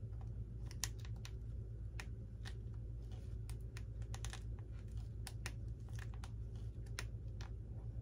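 Light, irregular clicks and taps of small parts handled by fingers in the cockpit of an RC model plane as a pilot figure is fitted into place, about one or two a second, over a faint steady low hum.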